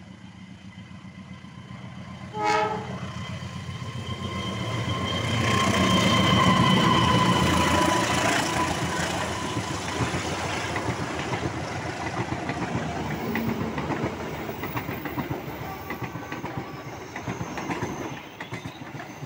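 Diesel-locomotive-hauled Kertajaya passenger train approaching and passing close by. A short horn blast comes about two seconds in. The locomotive is loudest a few seconds later, and then the carriages' wheels clatter steadily over the rail joints.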